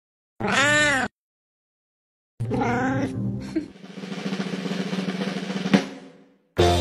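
Cat meowing once, a long meow that rises and falls in pitch, about half a second in. After a pause comes a brief pitched sound, then a few seconds of water splashing with a sharp knock near the end.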